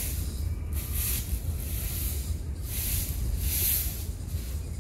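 Rustling crunches in dry leaf litter, in short bursts about once a second like steps through a bamboo thicket, over a steady low wind rumble on the microphone.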